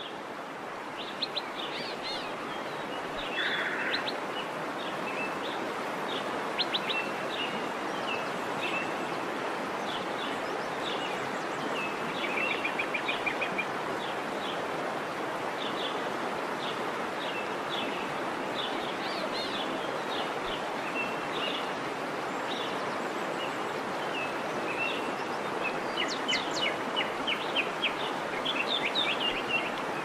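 Many small birds chirping and trilling over a steady rushing background noise, with short calls throughout and a busier flurry of chirps near the end.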